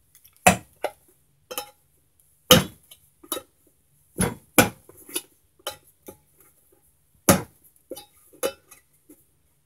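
Sharp metallic clicks and taps as holes are punched into an empty steel food can, about a dozen strikes at uneven spacing.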